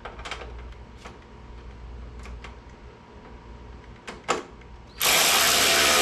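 A few light clicks and taps of a ratchet on a bolt, then about five seconds in a cordless electric ratchet's motor runs loudly for a second and a half, driving a fairing bolt tight.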